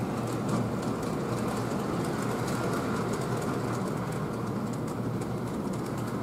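An O gauge three-rail model steam locomotive and its passenger cars run past close by. The sound is a steady rolling rumble of wheels and motor with many light clicks.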